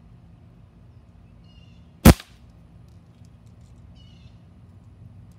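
A single shot from a Crosman Legacy 1000 multi-pump .177 air rifle: one sharp, short crack about two seconds in.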